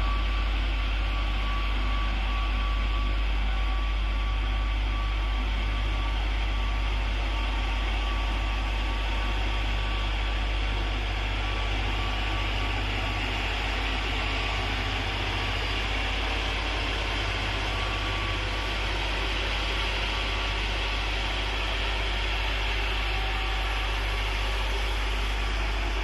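Road roller's engine running steadily, a deep, even drone with no change in speed.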